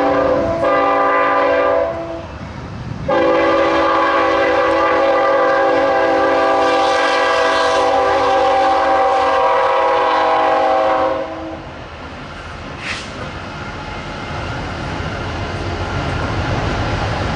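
BNSF freight locomotive's horn sounding a chord of several steady notes, one blast ending about two seconds in and a long blast of about eight seconds starting a second later. When the horn stops, the train's rumble grows steadily louder as it approaches.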